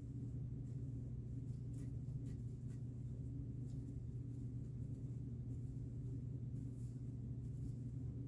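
A steady low hum, with a few faint, soft rustles of stretchy hammock fabric being gathered by hand.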